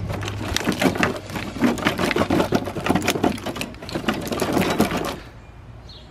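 Nissan 240SX engine wiring harness being pulled out of the engine bay: a dense run of plastic clicks, rattles and scraping as connectors and loom drag past the engine. It stops about five seconds in.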